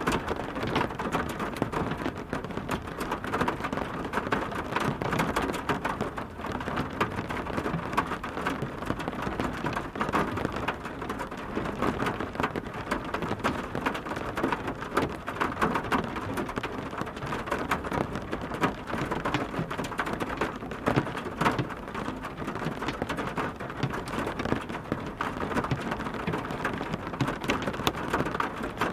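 Steady heavy rain: a dense, even wash of countless small drops striking a surface, with no letup.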